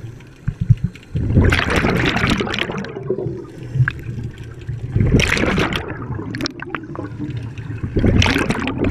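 Scuba regulator exhaust: bubbles rushing and gurgling in bursts as a diver exhales, three times, each a second or two long, over a steady low rumble. A few short knocks about half a second in.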